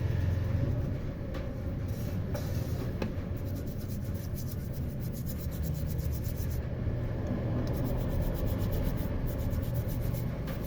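Brush scrubbing a watch wristband coated in baking soda, with quick, rhythmic back-and-forth strokes, over a steady low rumble.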